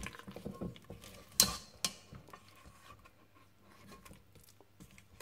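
Silicone spatula scraping and folding thick muffin batter in a stainless steel mixing bowl: soft scrapes and small clicks, with two sharper knocks against the bowl about a second and a half and two seconds in.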